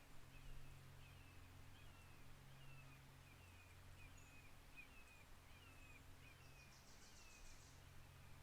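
Faint redwood forest ambience: a bird repeats a short chirp about twice a second over a steady low hum, with a brief high buzzy trill near the end.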